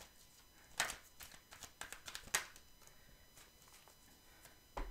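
Tarot cards being drawn from the deck and laid down on a cloth-covered table: a few short, soft slaps and rustles, the two loudest about a second and a half apart.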